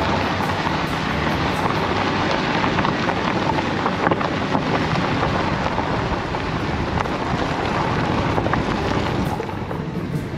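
Wind rushing over a microphone held out of a moving car's window, mixed with the car's tyre and road noise on a dirt road; a steady dense rush that eases slightly near the end.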